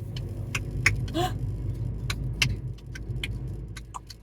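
Car running, heard from inside the cabin as a steady low rumble that comes in suddenly, with light rattles and clicks throughout. A short rising squeak comes about a second in.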